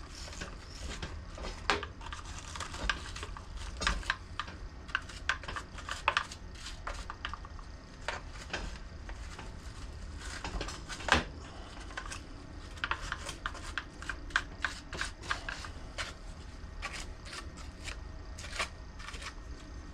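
Irregular clicks, taps and light clatter of hand tools and small plastic and metal parts being handled as a string trimmer is taken apart, over a low steady hum.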